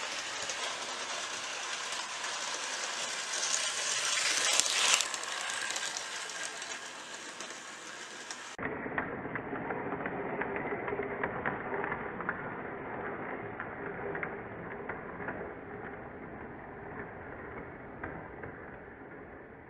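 Hornby Class 50 OO gauge model diesel locomotive running smoothly around the track, its small electric motor whirring and its wheels rolling on the rails. About nine seconds in the sound turns duller.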